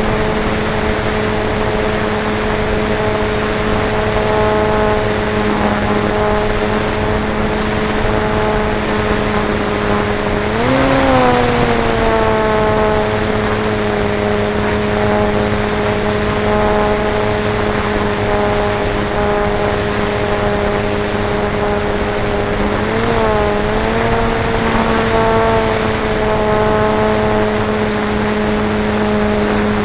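The electric motor and propeller of a ParkZone Stinson Reliant RC plane in flight, heard through its onboard camera: a steady whine over rushing air. The pitch swells up briefly about eleven seconds in and again near twenty-three seconds, as the motor speeds up.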